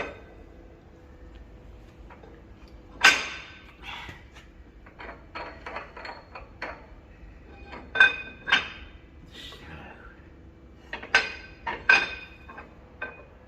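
Steel tools and parts clanking together, a string of sharp metallic knocks, each with a brief ringing. The loudest come about three seconds in, twice around eight seconds and twice near the end, with quieter clinks between.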